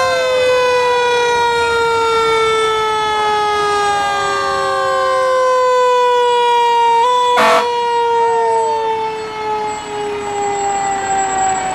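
Fire truck siren sounding steadily as the truck passes close by, its pitch slowly sliding down, then lifting briefly about seven seconds in and winding down again. A short loud blast of noise cuts in about seven and a half seconds in.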